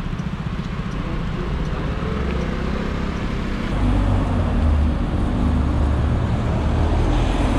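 Street traffic noise, with a city bus engine running close alongside from about halfway through, adding a strong low-pitched hum.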